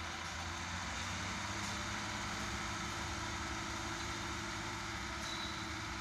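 Road-rail truck's diesel engine running steadily on the railway track, a low even engine hum.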